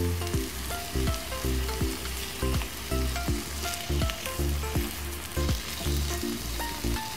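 Yogurt-marinated chicken pieces sizzling as they fry in oil in a nonstick pan, with a spatula stirring and turning them; the chicken's juices are being cooked off. A background tune with a steady, repeating beat plays underneath.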